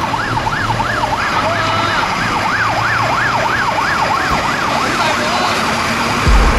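Fire engine siren yelping, its pitch rising and falling quickly about two to three times a second, fading out near the end. A loud deep low sound cuts in just before the end.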